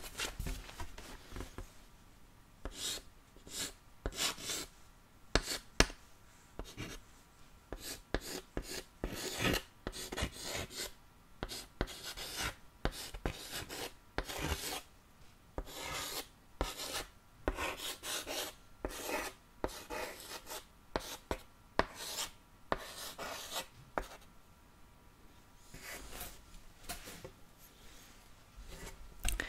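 Chalk writing on a small green chalkboard close to the microphone: short scratchy strokes in quick irregular runs, with a brief pause before the last strokes near the end.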